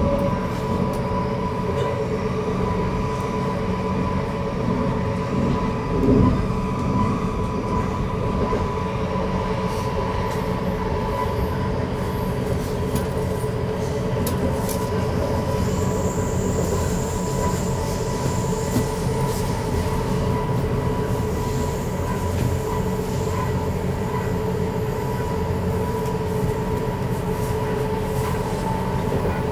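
Interior of an electric commuter train running along the line: steady rumble of the wheels and car body with a constant whine, and a brief knock about six seconds in.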